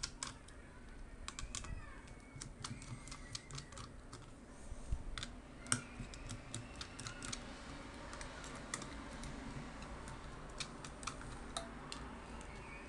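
Irregular small clicks and taps of a screwdriver working the screws out of a laptop motherboard's heat-pipe cooler, with loose screws and tools tapping on the board.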